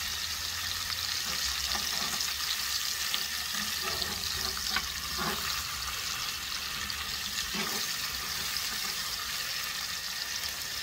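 Barbecue-sauced pork spare ribs sizzling steadily as they sear and warm through, with a couple of faint ticks partway through.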